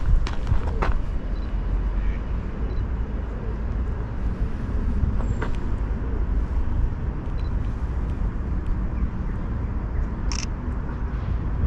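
Steady low rumble with a few faint short clicks.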